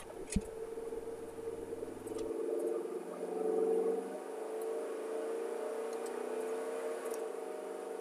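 2002 Chevy Tahoe's V8 engine pulling under hard acceleration, getting louder about two seconds in and then running on steadily at higher revs. The engine has a P0300 random-misfire fault, and misfires are logging on cylinders 6 and 2 during this pull.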